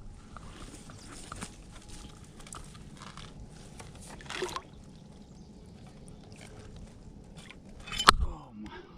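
Swamp water sloshing and dripping as a trapped beaver is pulled up out of the water, with scattered small knocks and a sudden louder burst about eight seconds in.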